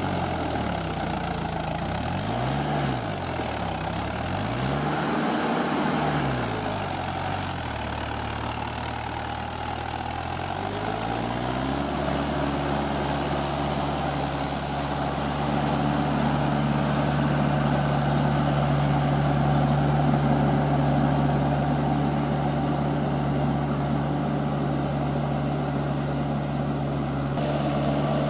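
Mahindra tractor's diesel engine working on cage wheels while puddling a flooded paddy. Its revs rise and fall twice in the first few seconds, settle lower, then climb about eleven seconds in and hold steady and higher. Water and mud splash from the wheels throughout.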